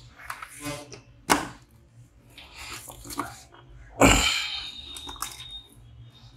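Hard plastic clicks and rubbing as a Parani M10 intercom unit is handled and fitted onto its mount on a motorcycle helmet shell, with a sharp click about a second in and a louder knock about four seconds in, followed by a second of scraping.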